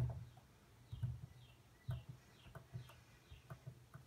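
A few faint, sharp clicks of buttons being pressed on a Sangean CL-100 weather radio while its menu is set up, with a run of about five faint, short, high chirps falling in pitch in the middle.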